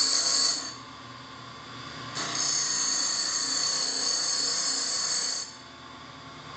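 Bench grinder's wire wheel brushing a brazed stainless steel percolator lid deflector to clean off flux and discoloration. There is a high hiss while the part is pressed to the wheel, stopping just under a second in and coming back from about two seconds in to about five and a half. In between, the wheel spins more quietly.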